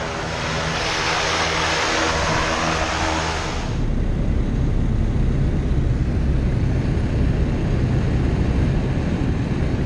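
A propeller plane's engine running nearby, with a loud hiss over a stack of steady tones. About four seconds in it changes abruptly to a small high-wing jump plane's engine heard from inside the cabin as the plane rolls along the grass strip: a steady, heavy, low drone.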